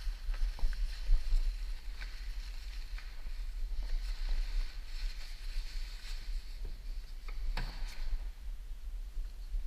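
Steady low rumble and hiss of camera handling, with a few light clicks and rustles as the white cloth-and-plastic car cover is touched, one a little louder near the end.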